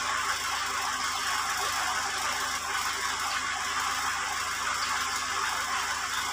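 Farm tractor's diesel engine running steadily, with a fast even low pulse, while it drives the hydraulic crane mounted on it as the boom is raised and swung out.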